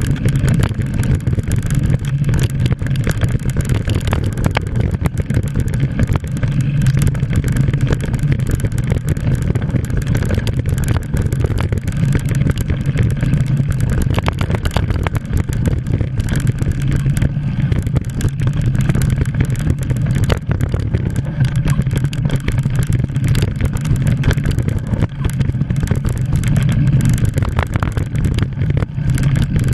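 Wind rushing over a mountain bike camera's microphone, with the rumble and rattle of the bike rolling fast down a dirt singletrack and a steady run of small knocks from the trail surface.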